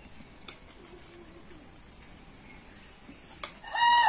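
A rooster crows near the end: one loud call on a held pitch that drops away as it ends, over a quiet outdoor background with a couple of faint clicks.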